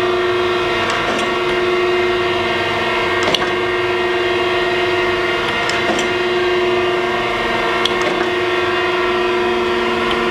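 Thompson 8" x 24" hydraulic surface grinder running with a steady, even-pitched hum while its table traverses on automatic reversing, with a few short sharp clicks.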